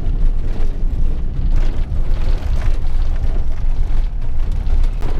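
Camper van on the move, a loud, steady low rumble of engine and road noise heard from inside the cab.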